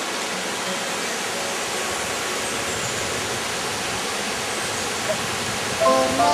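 Steady rush of a waterfall's falling water. Near the end a man's voice starts singing over it.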